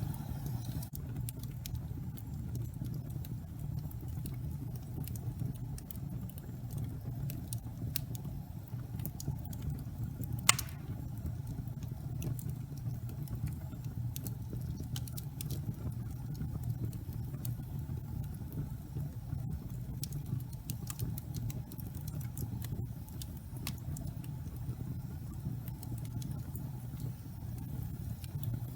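Wood fire burning: a steady low rumble of flames with scattered small crackles and one sharp, loud pop about ten seconds in.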